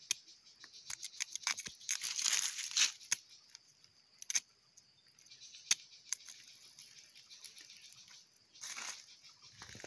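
A large knife cutting into firm unripe green fruit: a series of sharp chops, with longer slicing scrapes about two seconds in and near the end, and a plastic bag crinkling.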